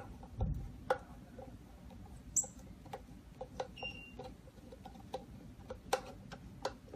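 Light clicks and ticks at about two a second, with a dull thump about half a second in and a brief high squeak a little past two seconds.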